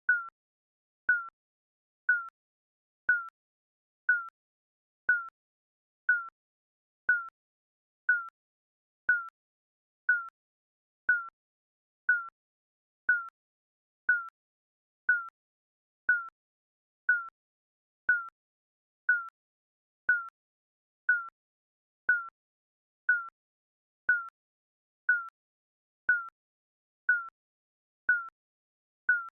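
Electronic countdown timer ticking: a short, high beep-like tick once every second, evenly spaced.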